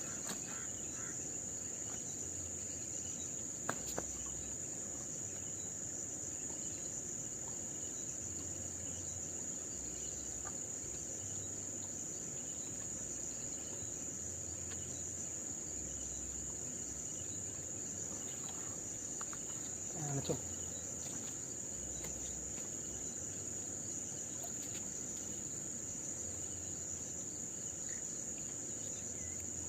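Insects droning steadily at a high pitch, with a short knock about four seconds in and another about twenty seconds in.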